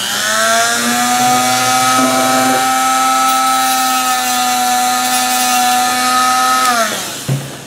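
Handheld electric rotary tool with a cut-off disc running steadily at speed, a high whine with a strong hum beneath, used to trim a small plastic tablet button piece. Near the end it is switched off and its pitch falls away as it winds down.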